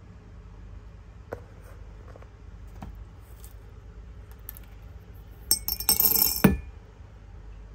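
Hard candies clattering and clinking together in a dense burst of about a second, a little past halfway, after a few light clicks.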